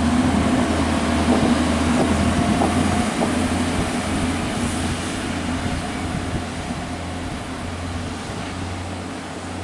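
A Class 143 Pacer diesel multiple unit's underfloor diesel engine working as the train pulls out of the station, with the rumble of the train on the rails. The steady low hum fades gradually as the train draws away.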